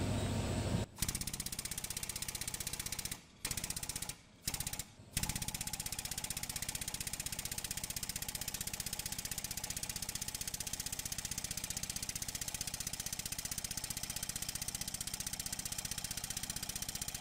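Shop press pump running with a rapid, even chatter as the ram drives a punch down to press the broken shaft and bearing out of a stepper motor rotor. It cuts out briefly three times in the first five seconds, then runs on steadily.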